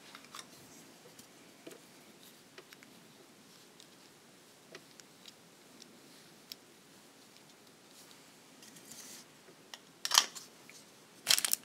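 Faint small clicks and taps from beadwork and a thread-trimming tool being handled on a bead mat, with two louder brief scrapes about a second apart near the end.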